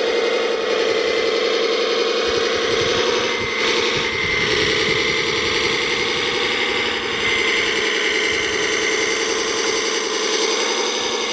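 Electric motors and gearboxes of radio-controlled construction models running steadily, with a high whine that grows stronger partway through.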